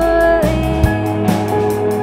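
Live rock band playing: electric bass notes under held, bending melody notes, with drums keeping a steady beat of cymbal ticks.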